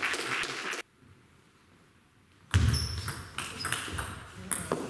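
Table tennis ball clicking sharply off rackets and the table during a rally. The sound cuts off suddenly under a second in and comes back about two seconds later with a dull thump, followed by more quick ball clicks.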